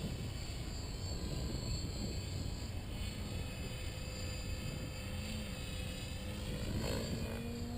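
FMS 1400mm Pitts radio-controlled model biplane in flight, its electric motor and propeller giving a hum that wavers in pitch around the middle and settles to a steady tone near the end, over a constant low rumble.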